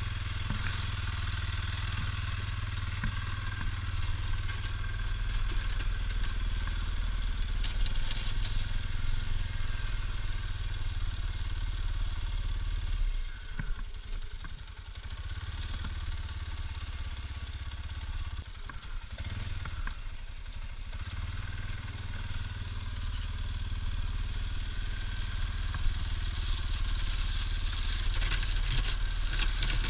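ATV engine running with a steady low drone, easing off twice about halfway through and then picking up again.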